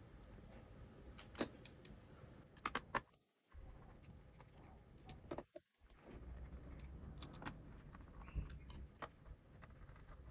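Small hard parts clicking and clinking during hands-on work on a graphics card, over a low handling rumble. There are irregular sharp clicks throughout, the loudest about one and a half seconds in.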